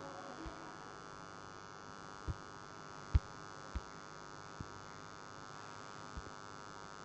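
Steady electrical mains hum with a buzzy stack of overtones, broken by six short, dull low knocks at uneven intervals, the loudest a little past three seconds in.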